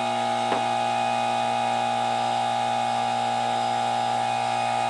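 Steady electrical hum with a whine layered above it from a test load drawing about 1 amp through a MOSFET power-redundancy circuit. Near the end the tones shift in pitch and the low hum gets louder as the current is turned up.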